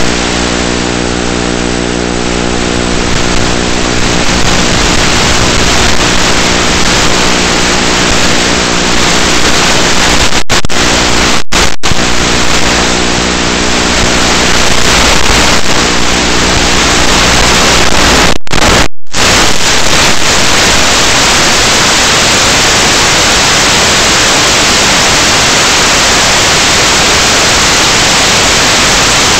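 Audio of an analog FPV video link: a steady motor hum from the Zohd Drift's onboard microphone fades within the first few seconds into loud, even radio static, with a few brief dropouts near the middle, as the video signal breaks up. The static flattens into a constant hiss in the last third.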